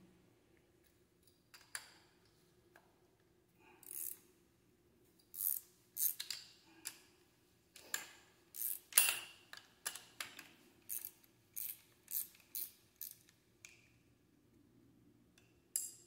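Irregular metallic clicks and clinks of hand tools and brake-kit bolts being handled, a dozen or so coming thickest between about five and thirteen seconds in, a few ringing briefly.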